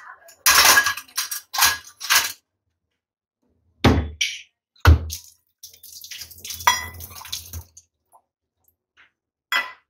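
Stainless steel dishes clinking and clanking as they are handled, with two heavier knocks around the middle. Then a tap runs for about two seconds into a steel sink while a steel bowl is rinsed, and one last clink comes near the end.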